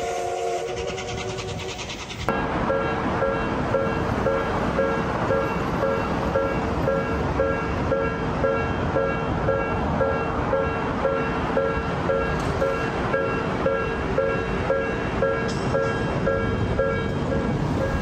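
Japanese railway level-crossing warning bell ringing in a steady, evenly repeating rhythm over a constant rumbling noise. It starts abruptly about two seconds in, cutting off a few held tones.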